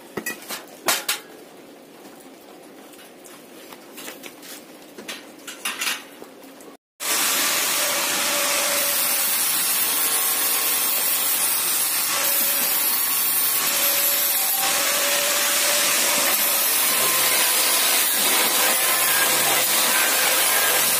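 Hammer blows on a wooden block set against a welded steel frame: a few sharp knocks, then lighter ones. After a short dropout about seven seconds in, a loud, steady hiss takes over.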